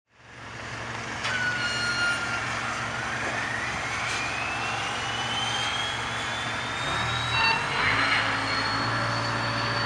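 Machine noise fading in: a steady rushing with a low hum, under a whine that rises slowly in pitch for several seconds, like a turbine spinning up.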